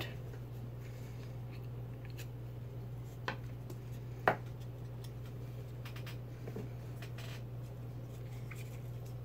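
Steady low hum in a quiet room, with a couple of light knocks, about three and four seconds in, from craft items and the pot being handled on a table.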